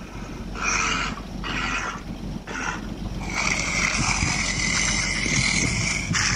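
Recorded walrus calls played through a phone's speaker: three short rough calls, then one longer rough call lasting about three seconds.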